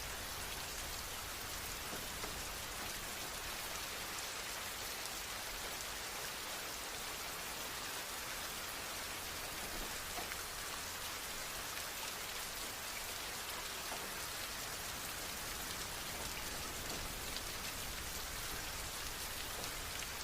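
Steady rain falling, an even hiss with the light patter of individual drops.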